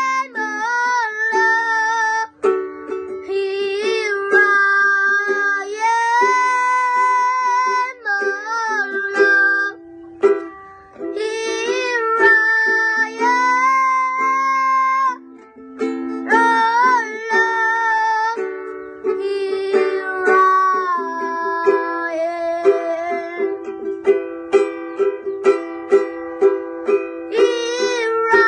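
A boy singing an English worship song while strumming a ukulele. His voice slides and wavers between notes over steady chords, with short breaks between phrases. The strumming becomes more sharply rhythmic in the last several seconds.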